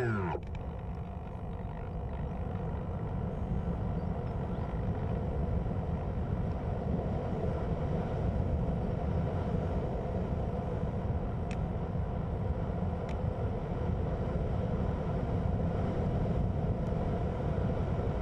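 Steady rush of wind over the onboard camera microphone of a Hobbyking Cloud Surfer RC glider flying with its electric motor cut. The rush grows a little louder over the first few seconds as the plane picks up speed.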